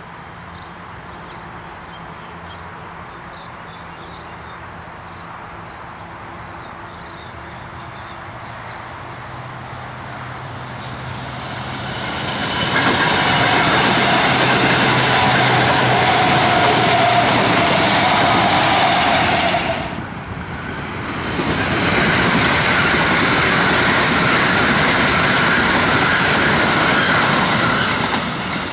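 A Comeng electric multiple-unit train approaches with a low hum, then passes close at speed in a loud rush of wheel and rail noise with a steady tone. After a sudden brief drop about two-thirds in, a Siemens electric multiple-unit passes at speed in the same way with a higher steady tone.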